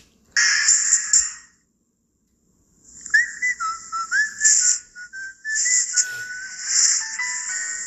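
Whistling: a tune of short stepping notes that starts about three seconds in, over a steady high hiss, after a brief burst of sound and a second of silence.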